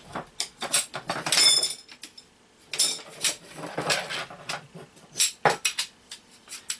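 Lightweight aluminium cot poles clinking and clicking as their sections are fitted together and handled, with a brief metallic ring about a second and a half in.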